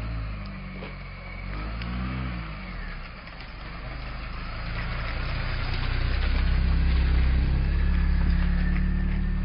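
A motor vehicle's engine running, its pitch dipping and rising about two seconds in, then growing louder over the next few seconds and holding.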